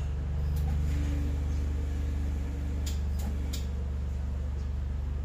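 A steady low rumbling hum with a fast flutter in it, and a few light ticks about three seconds in.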